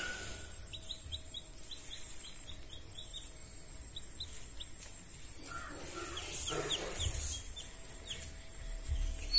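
Newly hatched chicken chick peeping: a run of short, high, falling peeps, thinning out around the middle and picking up again. A brief muffled noise comes about six to seven seconds in.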